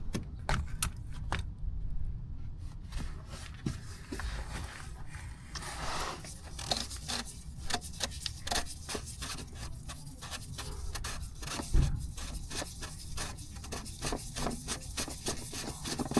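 Ratchet with a 27 mm socket clicking in quick runs as it backs off the plastic oil filter housing cap on a Hyundai Elantra 2.0L, with some scraping and one dull knock about twelve seconds in.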